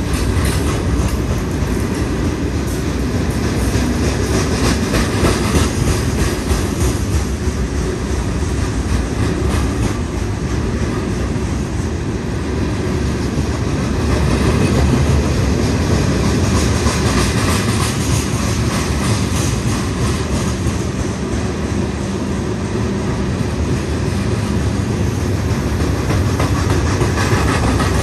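Freight cars of a long stone train rolling past close by: a steady rumble and clatter of steel wheels on the rails, with faint repeated clicking.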